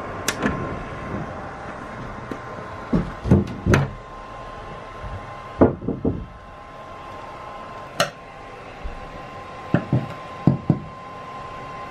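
Irregular knocks and thumps on the van's sheet-metal roof, heard from inside, as someone works above prying out the glued plastic plugs from the roof-rail holes. Some knocks come in quick pairs, over a steady thin hum.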